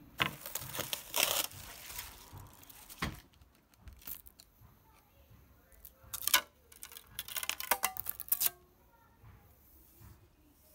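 Plastic vacuum-bag film crinkling and tearing as it is pulled away, then sharp crackles as the cured carbon fibre prepreg sheet is pried up and peeled off the glass plate. The sound comes in short bursts, the last cluster about two-thirds of the way through.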